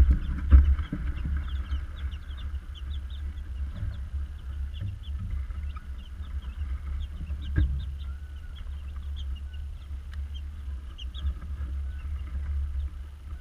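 Young chicks peeping, with many short, high chirps scattered throughout, over a steady low rumble. A single knock sounds about halfway through.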